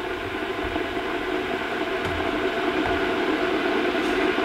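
Electric kettle heating water back toward the boil: a steady rushing hiss that grows slowly louder.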